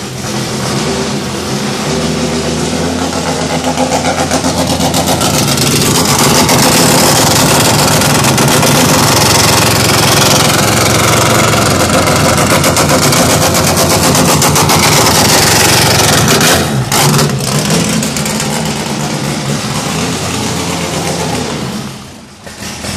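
Freshly built Ford engine running on its first start-up. It climbs to a fast, steady high idle over the first few seconds and holds there, stumbles briefly about two-thirds of the way in, then runs lower and dips sharply near the end.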